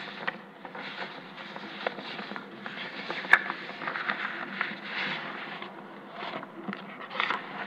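Room noise of a legislative chamber: a low rustling haze with scattered small clicks and knocks, and one sharp click about three seconds in.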